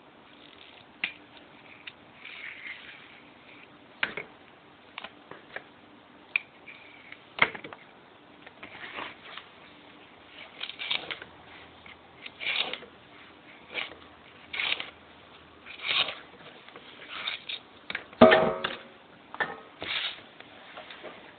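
Kitchen knife working runner beans on a chopping board: irregular light taps of the blade on the board and short scraping, tearing sounds as the bean ends are cut and the tough strings pulled off. A louder knock on the board comes about 18 seconds in.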